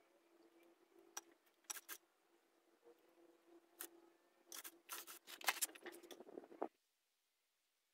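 Scissors snipping and loose bonsai wire clinking as it is handled: scattered sharp clicks, then a busier run of metallic clicking and jingling, over a faint steady hum. The sound cuts off suddenly near the end.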